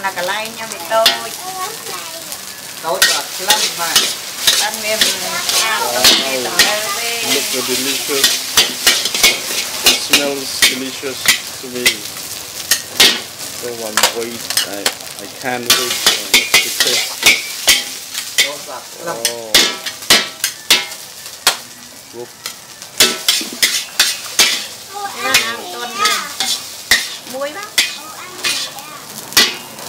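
A metal spatula scraping and clanking over and over against a wok as noodles are stir-fried, with steady sizzling of the food in the hot pan.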